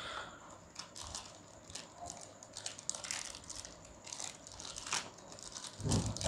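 Plastic packet crinkling and tearing in short crackles as a new speedometer worm gear set is unwrapped by hand, with a dull thump near the end.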